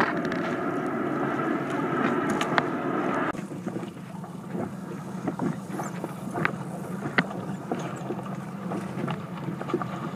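Wind on the microphone and water lapping against a boat, with a steady low hum and scattered small clicks and splashes. The sound changes abruptly about three seconds in.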